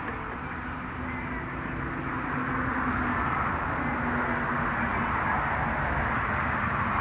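Skateboard wheels rolling over pavement: a steady rolling rumble with a faint hum, growing a little louder about two seconds in.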